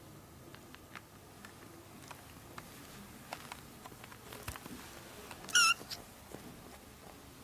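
A kitten mews once about five and a half seconds in: one short, high-pitched, wavering cry. Before it come scattered faint taps.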